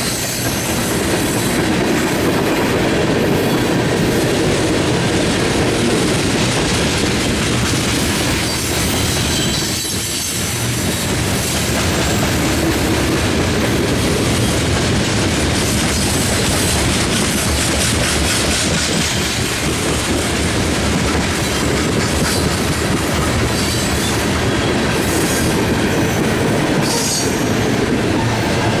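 Freight cars of a long mixed freight train rolling steadily past, steel wheels clattering over the rail joints, with thin high wheel squeal now and then.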